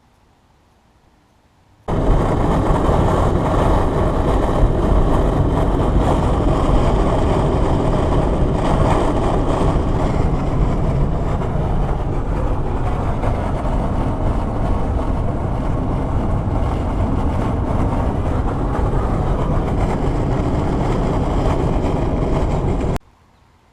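Steady rushing wind and road noise inside a moving Subaru Outback's cabin, the wind noise that worn window gussets let in. It starts suddenly about two seconds in and cuts off suddenly near the end.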